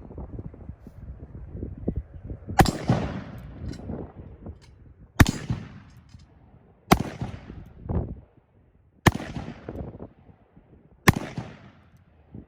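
Five single shots from a .45 Colt single-action army revolver firing black-powder cartridges, spaced about two seconds apart, each followed by a fading echo.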